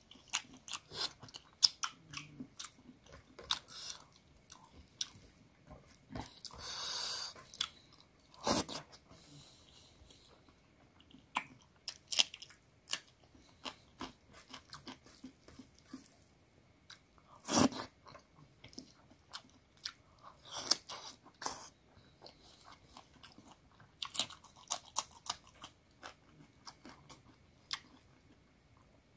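A person chewing a mouthful of chicken curry and rice eaten by hand, with wet smacks and scattered sharp clicks. There is a second-long rasping sound about seven seconds in.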